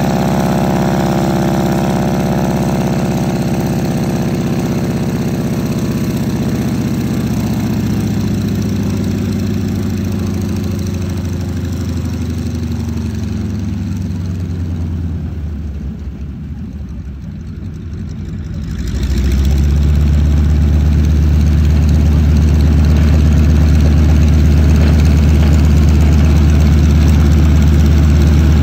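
North American Harvard's Pratt & Whitney R-1340 Wasp nine-cylinder radial engine running through its pre-takeoff power checks. It runs at power with its pitch slowly sinking, eases back to a quieter note about 15 seconds in, then opens up again about 19 seconds in to a louder, steady run-up.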